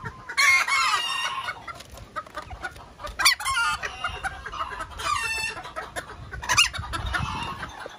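Bantam chickens clucking and calling in several separate bursts, with a rooster's crow among them.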